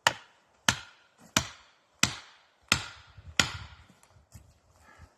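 Sledgehammer striking a felling wedge, six sharp blows in a steady rhythm of about one and a half a second, driving the wedge in to tip the tree. A few fainter knocks follow near the end.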